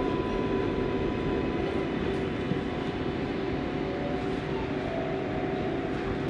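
Interior running noise of an R188 subway car: a steady rumble with a few faint, steady hums as the train moves along a station platform.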